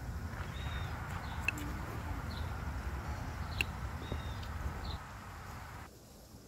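Short, high bird chirps repeat over a low, steady outdoor rumble. Two light clinks, a metal fork against a ceramic plate, come about a second and a half in and again midway. Near the end the background drops to a quieter hush.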